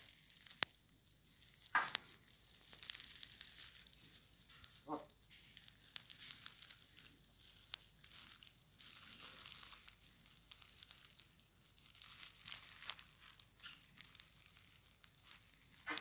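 Faint rustling and crinkling with scattered small clicks, broken by a few short, soft calls from an African grey parrot.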